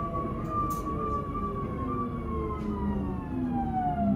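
Traction motor whine of a Škoda RegioPanter electric multiple unit, heard from inside the passenger car as the train slows into a station. Several tones fall steadily in pitch together over a low running rumble.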